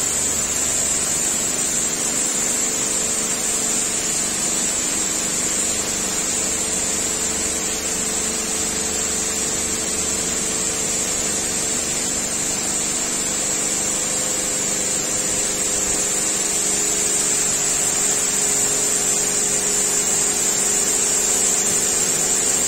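Robowash 180 Eco Smart touchless car wash spraying high-pressure water onto a car: a steady hiss of spray over the even hum of its pump.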